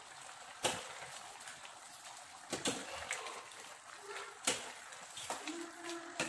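A steel spatula stirring pepper chicken curry in a stainless steel pot, knocking sharply against the pot three times, about two seconds apart, with softer scraping and wet stirring in between.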